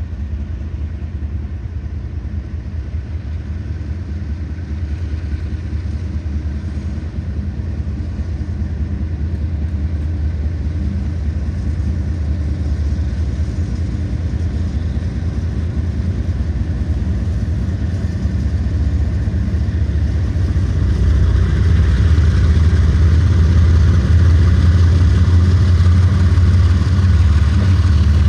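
Diesel locomotives of a freight train running with a steady low rumble that grows louder as the lead units approach, swelling about two-thirds of the way through.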